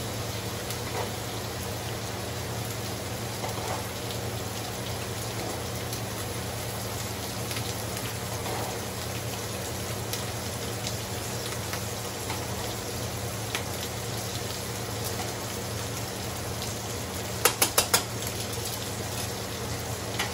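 Ground beef sizzling steadily in a skillet, with a pot of spaghetti noodles cooking beside it. Near the end come four quick sharp clicks of metal kitchen tongs.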